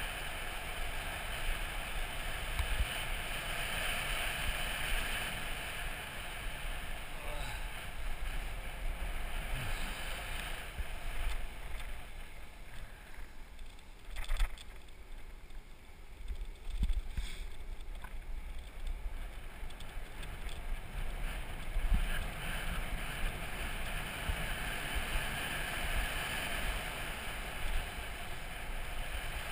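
Wheels of a downhill board rolling fast on asphalt, with wind rushing over the camera, in a steady hiss. The rush eases for a few seconds partway through as the board slows into a hairpin. Single knocks come just before it picks up again and about two-thirds of the way in.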